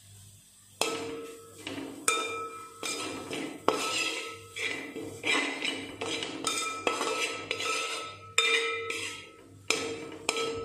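Metal spatula scraping and knocking against the sides and bottom of a wide aluminium pot while stirring a dry stir-fry, starting about a second in. There are repeated strokes, roughly one or two a second, and each leaves the pot ringing briefly.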